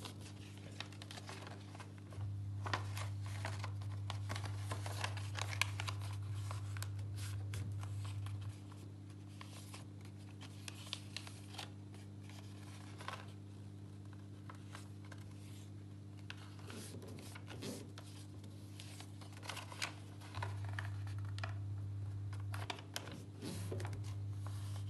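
A sheet of paper being folded and creased by hand: rustling and crackling with short crisp ticks as the folds are pressed down. A low steady hum runs underneath, louder from about two seconds in until about eight seconds, and again near the end.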